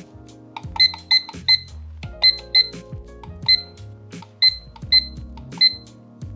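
IKEA Plugget digital alarm clock beeping as its buttons are pressed to step the alarm minutes: nine short, high beeps at uneven intervals over about five seconds. Background music plays throughout.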